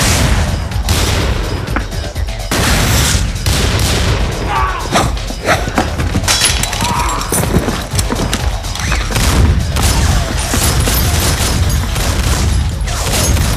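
Movie gunfight soundtrack: repeated handgun shots and heavy impacts over music with a constant deep bass underneath.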